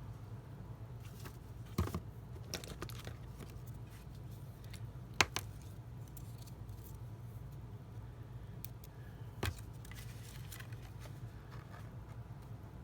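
Small handling sounds of paper and card being worked by hand, with a few light clicks and taps, the sharpest about five seconds in, over a steady low hum.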